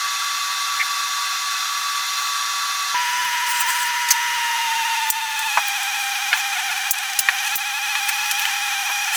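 Steady high-pitched whine from a small motor that drops in pitch in two steps, about three and five and a half seconds in, with a few faint clicks.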